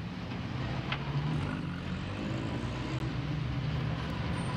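Street traffic with a large vehicle's engine, such as a city bus, running with a steady low hum.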